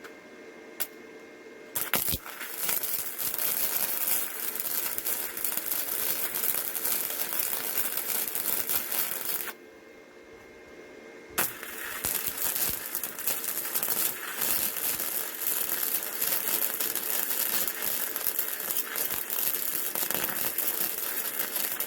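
Wire-feed welder running an arc, a steady crackling sizzle as a washer is welded onto a steel rod. Two welds: one of about seven seconds starting about two seconds in, then a short pause, then a longer one of about ten seconds.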